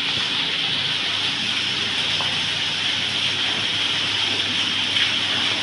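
Fountain water pouring from a statue's jar and splashing steadily into the basin below.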